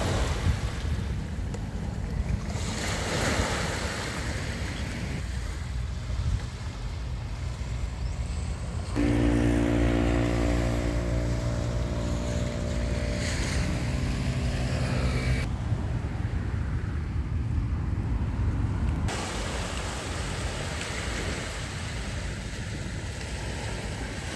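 Small waves washing up on a sandy beach, with wind on the microphone. The sound shifts abruptly several times as shots change, and for about six seconds in the middle a steady hum of several tones runs under the surf.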